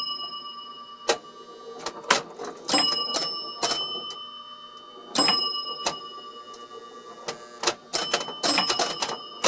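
Electromechanical pinball machine in play: clusters of sharp relay and solenoid clacks, several of them with bell-like chime tones ringing out and fading as points score. The clusters come in irregular bursts about once a second, some close together.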